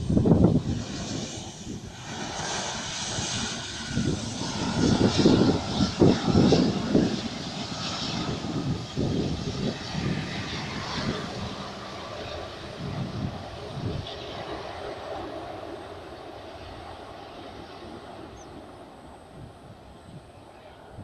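Airbus A380's jet engines heard from beside the runway during the landing roll-out. A loud rumbling, hissing roar swells up suddenly at the start, surges for several seconds, then fades away steadily as the aircraft slows and rolls off.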